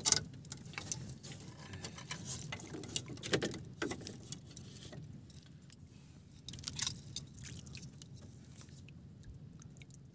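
Scattered small clicks, taps and rustles of fishing gear being handled in a small boat as a handline spool is taken up, with the sharpest click right at the start.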